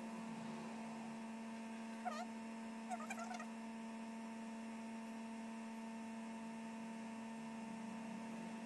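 Faint steady electrical hum, a low tone with higher overtones. A few short, faint chirps come about two seconds in and again around three seconds in.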